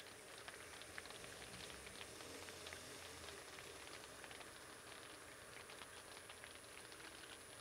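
Near silence: faint outdoor hiss with scattered light ticks and a thin steady high whine.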